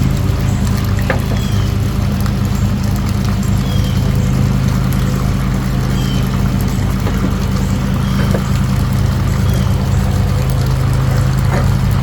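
A machine running steadily: a loud, even, low hum. Faint short high chirps recur about every second over it.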